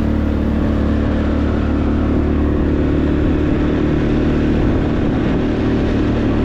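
Motorcycle engine running steadily while riding, with the rush of wind and road noise over the microphone.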